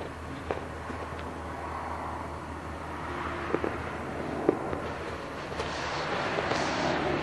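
Waste truck's engine running with a steady low hum, a few sharp knocks, and passing traffic growing louder near the end.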